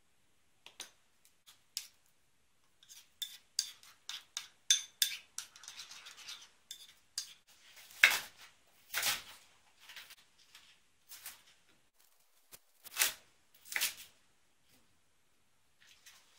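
Kitchen knife cutting through cabbage leaves onto a wooden cutting board: four heavier strokes in the second half. Before them, a quick run of light clicks and taps.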